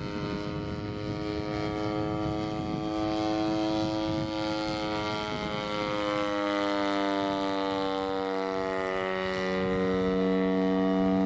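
A twin-cylinder 70cc gasoline engine (EME 70) turning a 24×8 propeller on a 1/3-scale Sopwith Pup RC biplane in flight. It gives a steady engine drone whose pitch sags slightly about midway, then holds, and it grows a little louder near the end.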